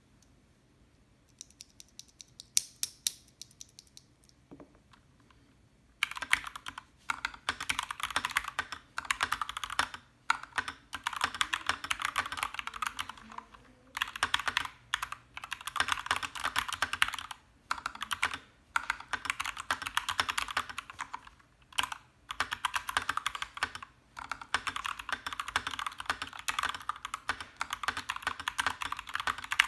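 Typing on a GMMK Compact mechanical keyboard with lubed Gateron Ink Black linear switches and a Boba U4T tactile switch under the spacebar. There are a few separate keystrokes at first, then from about six seconds in fast continuous typing in runs broken by short pauses.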